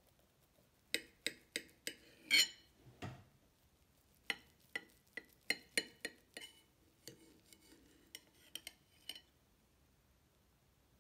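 Metal knife and fork clinking and scraping against a ceramic plate while cutting through a stack of pancakes: a string of sharp clicks and taps, the loudest a clatter about two seconds in, followed by a duller knock.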